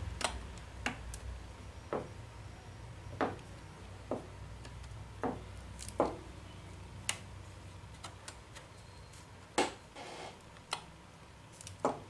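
Small, sharp clicks and taps at irregular intervals, about a dozen in all, as a laptop's flat power-switch ribbon cable is worked into its connector and pressed down by fingers against the metal chassis.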